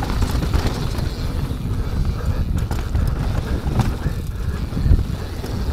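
Mountain bike rolling down a dirt downhill trail: steady wind rumble on the rider's microphone and tyre noise, with the bike rattling and knocking sharply over bumps a few times.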